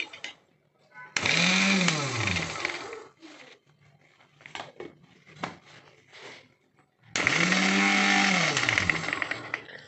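Mixer grinder motor switched on in two short bursts, each time speeding up with a rising whine and winding down once switched off. In between come a few clicks and knocks from handling.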